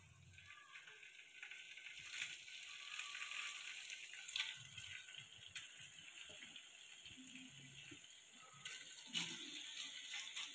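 Faint sizzle of paneer cubes frying in a little hot oil in a kadai, as more cubes are dropped into the pan.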